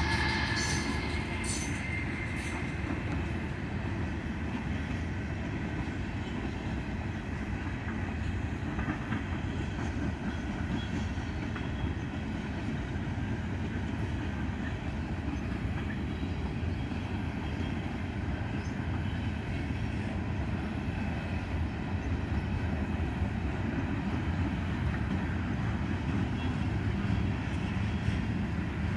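Freight train cars (gondolas, boxcars and a tank car) rolling past on the rails, making a steady low rumble. It is a little louder in the first second or two as the second locomotive goes by.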